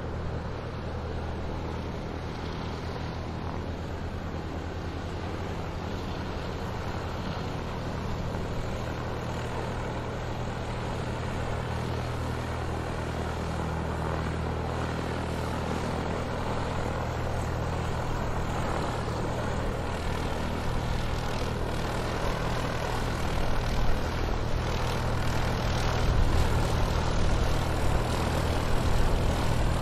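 Airplane taxiing, its engine running steadily with a low hum and a broad rushing noise. It grows gradually louder, with uneven surges in the last few seconds.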